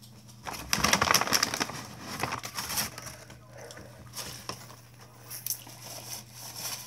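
Brown paper takeout bag rustling and crinkling as it is handled, loudest in the first couple of seconds, then scattered smaller crackles.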